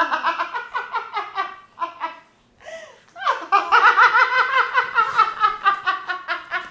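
A woman laughing heartily in quick, rapid pulses: a short run of laughter, a brief pause, then a longer, louder fit of laughing from about three seconds in.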